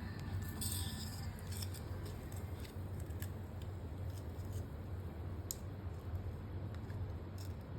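Effervescent tablet fizzing in water: scattered faint crackles and ticks of bursting bubbles, densest about a second in, over a steady low hum.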